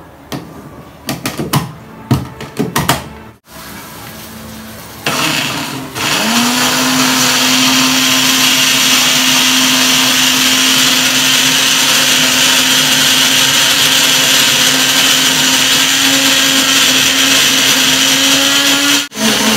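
A few knocks and clicks, then a personal bullet-style blender grinding a green chutney: a short pulse about five seconds in, then the motor runs steadily for about thirteen seconds, its pitch creeping slowly upward, and cuts off sharply near the end.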